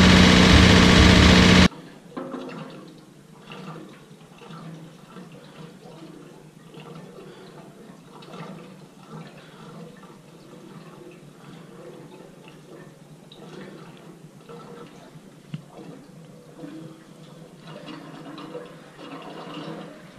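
Rebuilt Datsun 280Z's L28 inline-six running, cut off abruptly under two seconds in. Then faint liquid pouring and sloshing, with small knocks, as gasoline is poured from a plastic jerry can into the car's fuel tank.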